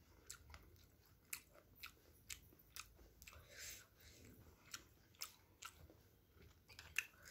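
Faint mouth sounds of someone chewing steamed chicken momos: soft, irregular wet clicks and smacks.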